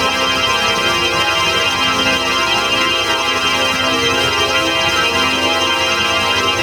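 Organ holding a dense, many-note chord at a steady loudness, with a slight warble in its middle notes.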